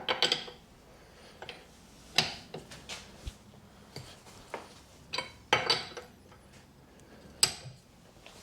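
Sharp metallic clinks and clanks of a wheel brace being fitted onto and worked around the wheel bolts during final tightening. There are a few separate clanks, with a cluster of them just after halfway.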